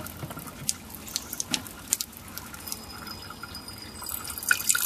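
Filtered water trickling from the outlet of a slow sand filter, a slow flow of about 30 litres an hour, with irregular drips and splashes. About four seconds in, the splashing gets louder and steadier.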